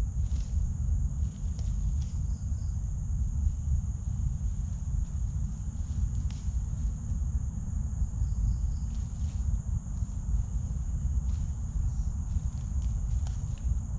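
Steady high-pitched drone of forest insects, over a continuous low rumble, with a few faint clicks scattered through.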